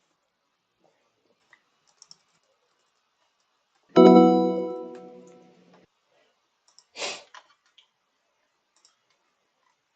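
A computer alert chime: one loud ringing tone that fades away over about two seconds. Faint mouse and keyboard clicks come before and after it, and about three seconds after the chime there is a short hissing burst.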